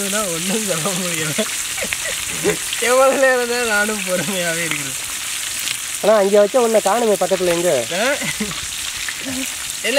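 Chicken legs frying in oil and butter in a flat pan over a wood fire, a steady sizzle, with a man's wavering voice over it in three stretches.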